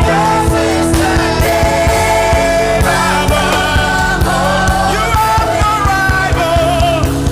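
Worship song: voices singing over a band with a steady drum beat.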